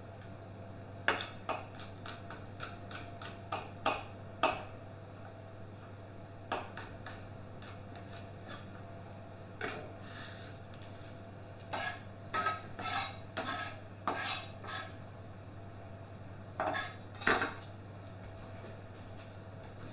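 Kitchen knife slicing potatoes on a cutting board, the blade knocking the board in irregular quick clusters, over a steady low hum.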